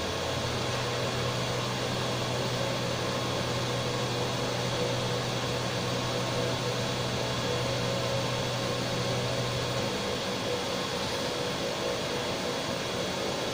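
COLGAR PROG 213 CNC horizontal machining centre running, with the steady hum of the machine and its fans and a few faint steady whines. A low drone, likely the drive turning the rotary table, starts just after the beginning and stops about ten seconds in.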